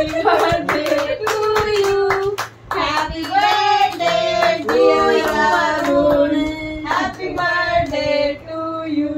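A group of family members singing a birthday song together while clapping along in time, as the cake is cut; the clapping is densest in the first few seconds, and the singing ends with a held note near the end.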